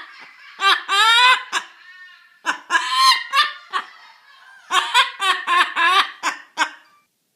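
Laughter-like bursts in quick runs of short pitched notes, several groups with short pauses between.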